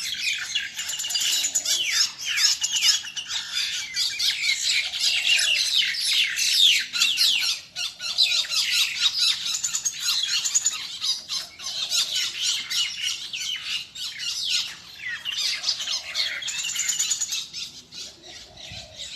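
Small birds chirping and squawking rapidly over one another without a break, as in a squabble between them.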